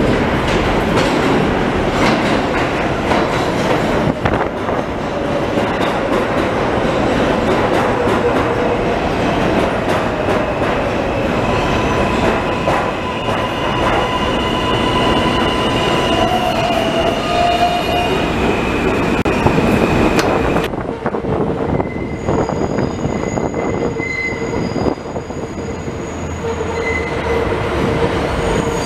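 New York City Subway train running into an elevated station: a loud, steady rumble of steel wheels on rail, with squealing wheels in the middle stretch. About two-thirds of the way in the sound cuts to a quieter, more distant train approaching on the elevated tracks, with thin, high wheel squeal over its rumble.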